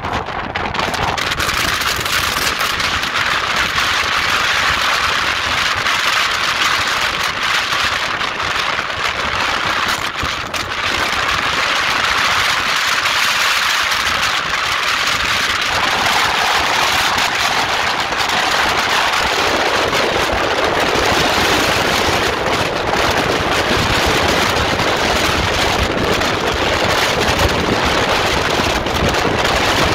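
Strong wind buffeting the microphone on a ferry's open deck, over the rush of the ship's bow wave and spray through a rough, whitecapped sea. A loud, steady, crackling noise.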